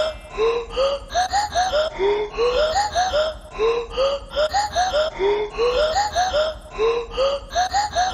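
A short clip of laughter-like voice sounds, a run of quick syllables stepping up in pitch, looped over and over about every second and a half.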